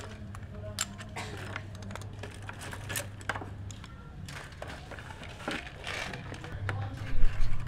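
Hand tools and small plastic boxes clicking and clattering in a plastic tray as a hand sorts through them and lifts some out: irregular sharp clicks over a steady low hum, with a louder knock near the end.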